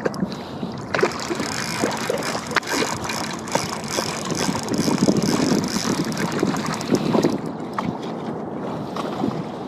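Small boat at sea: wind buffeting the microphone and water noise, with scattered knocks and handling clatter.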